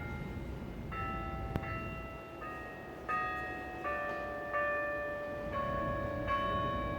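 Bells of the Berlin Tiergarten carillon, played by hand from a baton keyboard, ringing out a slow tune. A new bell is struck about every three-quarters of a second, and each keeps ringing under the next. There is a single sharp click about a second and a half in.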